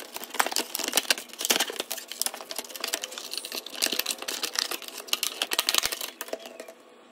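Clear plastic clamshell packaging crinkling and crackling as hands pull it apart and work a DeWALT bit case free, with many irregular sharp crackles. It dies away near the end.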